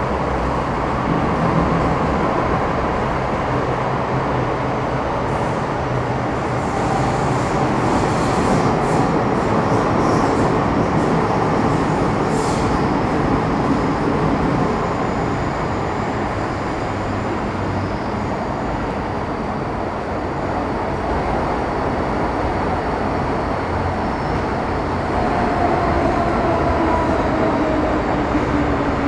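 MTR Metro Cammell M-Train EMU (car C239, GEC GTO chopper traction) running between stations, heard from inside the car: a steady rumble of wheels and motors on the rail with faint traction tones. Near the end, two tones slide slowly downward in pitch.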